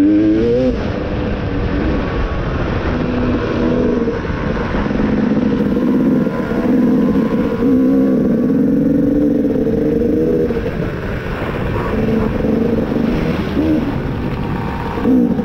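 Two-stroke engine of a 2018 KTM 250 XC dirt bike running under changing throttle on a trail. It revs up sharply near the start, then its pitch rises and falls.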